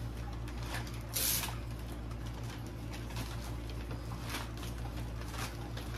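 Soft rustling and scraping from a fabric bat-wing cat costume being handled, with a brighter scrape about a second in and another about four and a half seconds in, over a steady low hum.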